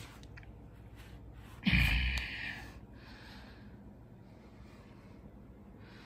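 A person's sharp breath or snort close to the microphone about two seconds in, then faint, soft breathing.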